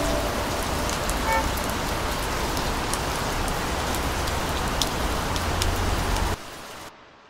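Steady rain falling, with scattered droplet ticks over an even hiss and a low rumble underneath. It drops away in two sudden steps near the end.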